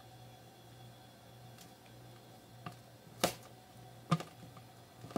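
Knife blade clicking and tapping against a plastic cutting board as a thin slice is cut from a block of cheese: a few scattered sharp clicks, the loudest about three seconds in, over a steady low hum.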